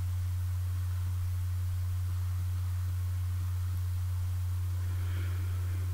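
A steady, unbroken low hum.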